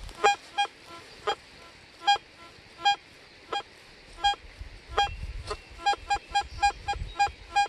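White's MXT All Pro metal detector giving short repeated beeps as the coil is swept back and forth over a buried target, which its display reads as a button or buckle: a good signal.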